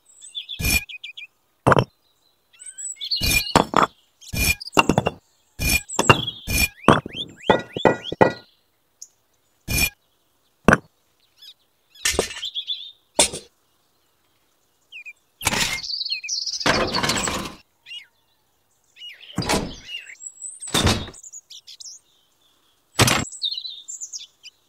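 Miniature clay bricks and small toy parts clicking and knocking as they are handled, in separate short sharp clicks with silent gaps between. A small scoop scrapes through cement powder about halfway through.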